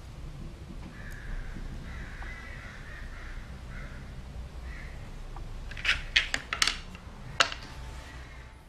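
Hard plaster bolt-head castings clicking as they are set down on a board: four quick sharp clicks a little after halfway, then one more, over a low steady hum.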